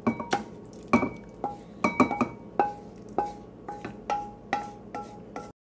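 Wooden spatula knocking and scraping against a wok as braised tofu in sauce is pushed out into a bowl: a string of short knocks, about two a second, each with a brief ring, cutting off abruptly near the end.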